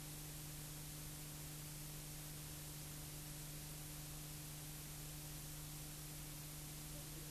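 Steady hiss with a constant low hum and nothing else: the blank sound track of an old silent cine film transferred to video, with no sound of the racing outfits.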